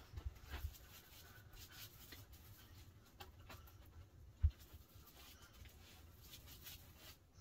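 Faint scratchy brushing and light taps as a paintbrush is worked in a metal roller tray of oil-based polyurethane, with one dull thump about four and a half seconds in.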